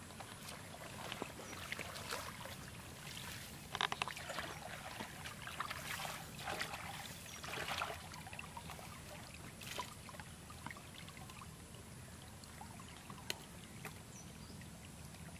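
Water sloshing and splashing as bare feet and hands wade and work in a shallow, muddy field channel, in irregular bursts, the loudest about four, six and eight seconds in, over a faint steady trickle of water.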